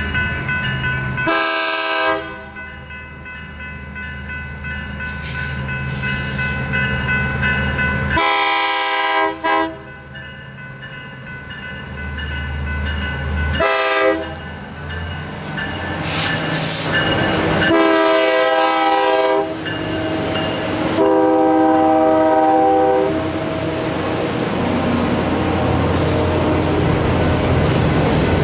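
BNSF 3GS21B genset locomotive's Nathan K3LA air horn sounding a crossing signal as the train approaches: two long blasts, a short one, then two more long ones. Between blasts the locomotives' engines run steadily and grow louder, and near the end the covered hoppers roll past with wheel clatter.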